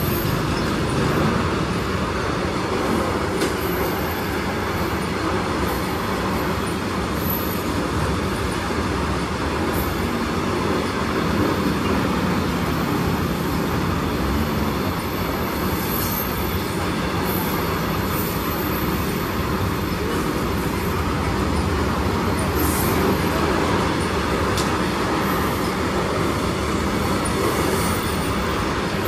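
Loaded BOXN open freight wagons of a long goods train crossing a railway bridge overhead: a steady, unbroken running noise of steel wheels on the rails and bridge.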